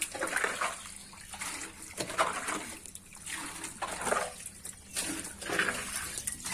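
Catfish thrashing in shallow water, splashing and sloshing in short irregular bursts, several in a row.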